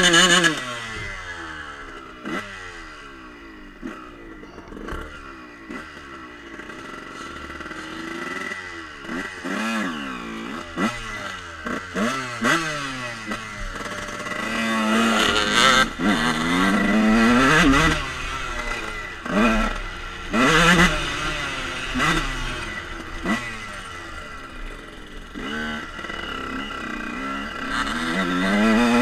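Dirt bike engine being ridden off-road, revving up and down through repeated throttle openings and closings. The pitch drops sharply just after the start as the throttle is shut, and it picks up again in the middle and near the end.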